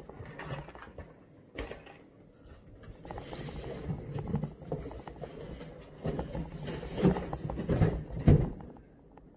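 Cardboard shipping box being handled: flaps rustling and scraping as the box is lifted and moved, with a run of irregular knocks and the loudest thump near the end.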